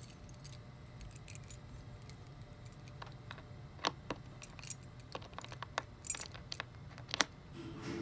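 A ring of metal keys jangling as one key is picked out, followed by sharp metallic clicks and scrapes of the key going into an elevator's key-switch lock and turning. A steady low hum runs underneath.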